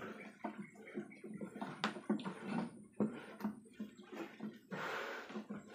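Soft, irregular grunting from pigs mixed with knocks and clicks as newborn piglets are handled in a wooden box, with a burst of rustling about five seconds in.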